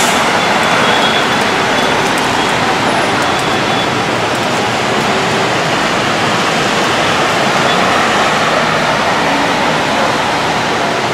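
Heavy rain pouring steadily, an even hiss with a few faint ticks of drops in the first seconds.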